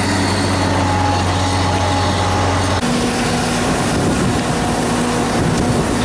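Engine running steadily with a low, even hum, then an abrupt change about three seconds in to a rougher, noisier engine sound.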